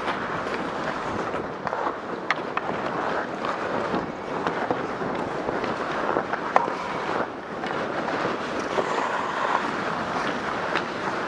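Ice skate blades scraping and gliding on rink ice, with wind rushing over the microphone of a moving skater, and scattered sharp clicks of hockey sticks and pucks.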